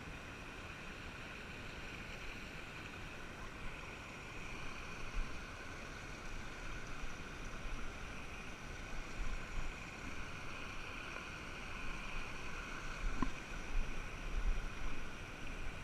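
Mountain stream rushing steadily over rocks, with occasional low bumps on the microphone that become more frequent in the second half.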